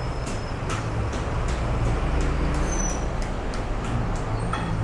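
Street traffic: a steady low rumble of road vehicles, with a bus close by, and light regular ticks about twice a second.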